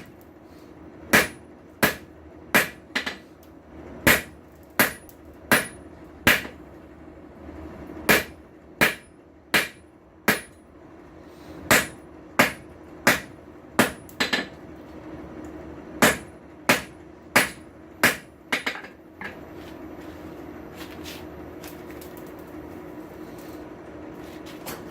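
Hand hammer striking hot steel on an anvil while forging a tong blank: sharp blows about 0.7 seconds apart, in runs with short pauses. The hammering stops about 19 seconds in, leaving a steady low hum.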